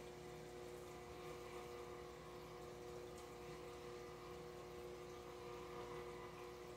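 Faint, steady aquarium bubbling from an air line, with a constant low hum from the tank's pump.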